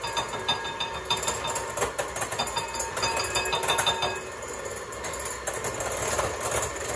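KitchenAid electric hand mixer running, its beaters whipping half-foamed egg whites in a glass bowl and clattering against the glass.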